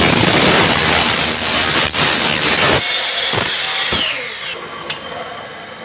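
Electric miter saw's toothed blade cutting straight through a square aluminium section. The cut runs loud for nearly three seconds, followed by a couple of knocks and the motor's whine falling in pitch as the blade spins down.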